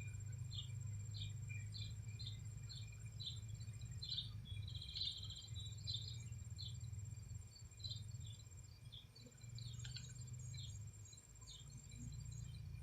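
Faint outdoor insect and bird chorus: short high chirps about twice a second over a thin, steady, high-pitched insect whine, with a low steady hum underneath.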